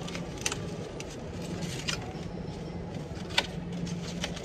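A few scattered sharp clicks and light rattles over a steady low hum.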